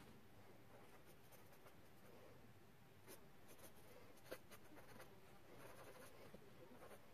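Faint scratching of handwriting on paper, in short strokes, with a light tap about four seconds in.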